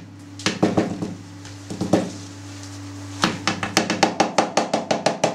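Hands knocking and tapping a hard plastic cheese mould on a steel tray to loosen a freshly pressed cheese stuck inside: a few separate knocks, then a quick even run of about seven knocks a second near the end.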